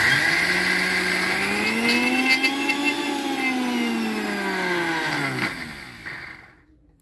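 Electric mixer-grinder motor running with its steel jar, wet-grinding soaked urad dal to a paste; its whine rises in pitch and then sinks again. It is switched off about five and a half seconds in and spins down.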